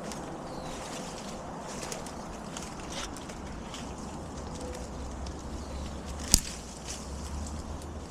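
Outdoor background with a low rumble, scattered faint small clicks and rustles, and one sharp click or knock about six seconds in.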